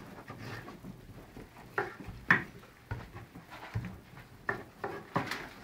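Knife cutting a peeled pineapple on a cutting board: a series of irregular knocks of the blade through the fruit onto the board, the sharpest about two and a half seconds in.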